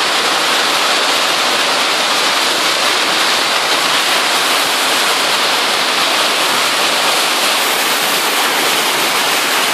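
Heavy downpour of rain and hail, a loud steady hiss with water spilling off a roof edge.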